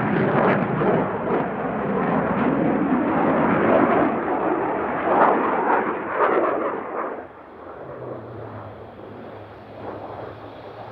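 Jet roar of an F/A-18C Hornet's twin General Electric F404 turbofans in display flight, loud and crackling. About seven seconds in it falls off sharply to a much quieter, steady rumble.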